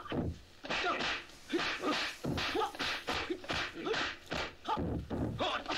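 Kung fu film fight sound effects: a rapid run of dubbed punch thwacks and whooshing swishes, about three a second, mixed with the fighters' short grunts and shouts.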